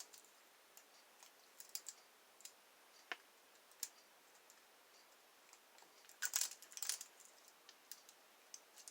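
Faint, scattered small clicks of a lock pick and tension wrench working in a lock, with a short run of clicks about six to seven seconds in.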